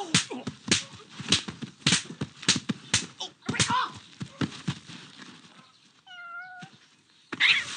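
A run of sharp slaps, about one every half second or so, through the first three and a half seconds. Then a short, wavering cat meow about six seconds in, and a brief loud burst of noise near the end.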